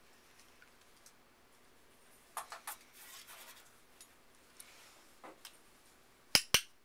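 Handheld training clicker pressed near the end, giving a sharp two-part click (press and release) as the marker signal in clicker training a puppy. Earlier, a few fainter ticks and a short rustle.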